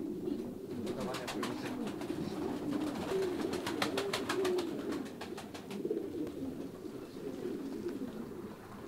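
A loft full of pigeons cooing, with overlapping low, wavering coos throughout. A run of rapid clicks comes between about one and six seconds in.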